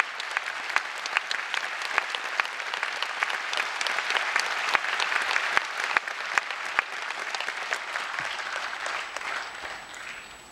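Theatre audience applauding, with dense, irregular clapping that dies away near the end.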